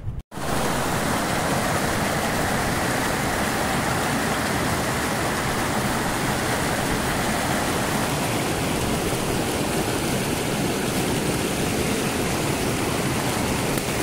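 Mountain stream rushing over rocks close by, a loud steady rush of water. It starts just after a brief cut-out at the very beginning, and its tone shifts slightly about halfway through.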